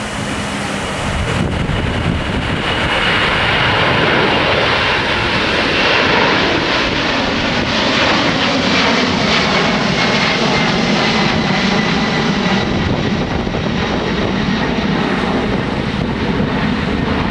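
Boeing 767's twin turbofan engines at take-off power as the airliner climbs out and passes: a loud jet roar that builds over the first few seconds, with a high fan whine sliding slowly down in pitch as the aircraft goes by.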